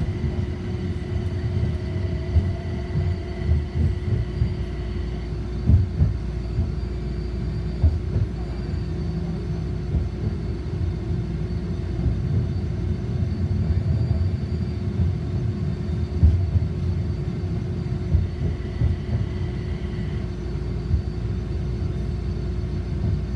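Toyama Chitetsu city streetcar running along the street, heard from inside the passenger cabin: a steady low rumble of wheels on rail under a constant hum. A high whine fades out about five seconds in and comes back near the end, and a few sharp thumps break through now and then.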